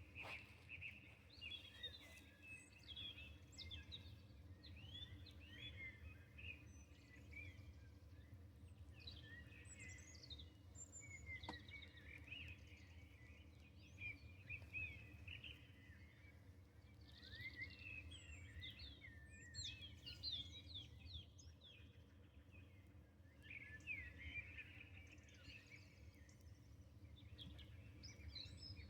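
Faint birdsong: many short chirps and trills from several small birds, over a low steady rumble.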